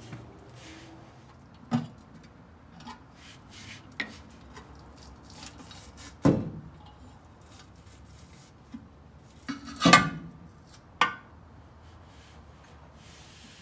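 Chrome steel differential cover on a Dana 60 rear axle being pried off its housing and pulled away by hand: scattered metallic clanks and scrapes, about six separate knocks, the loudest about six seconds in and a cluster around ten seconds.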